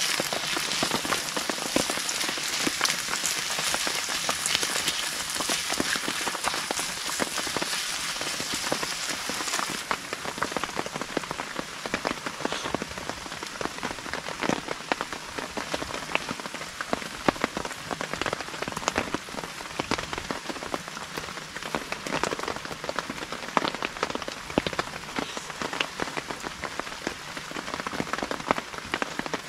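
Steady rain falling, a dense patter of many small drops, a little duller after about ten seconds.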